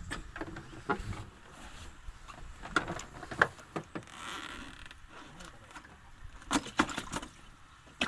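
Scattered light clicks and knocks of hands handling a giant freshwater prawn and a zippered mesh-lidded catch bag, with a short soft rustle about four seconds in.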